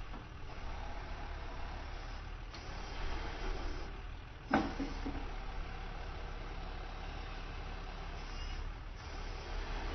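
Auto crane truck's engine idling steadily, with one short, sharp knock about halfway through.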